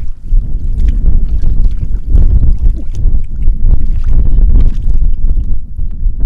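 Wind buffeting the microphone: a loud, low rumble that rises and falls without a break.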